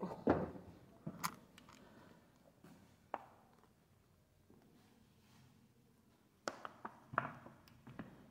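Scattered footsteps and knocks on a hard floor: a few steps near the start, a single knock about three seconds in, a quiet stretch, then several more steps near the end.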